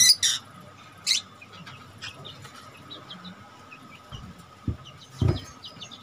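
Small caged parrots, lovebirds among them, chirping busily, with a couple of sharp screeches at the start and about a second in. Two dull knocks come near the end.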